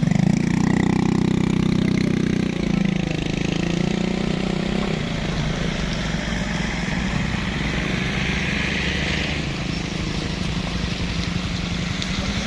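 Heavy truck's diesel engine running steadily under load, its note shifting slightly a few seconds in.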